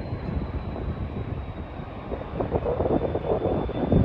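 Jet engines of a Qantas Airbus A330 on final approach, a low rumble that grows louder toward the end as the airliner comes closer.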